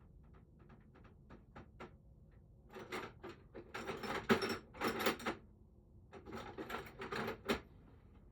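Tools and small lock parts being handled: light clicks, then from about three seconds in, loud bursts of rattling and scraping that stop shortly before the end.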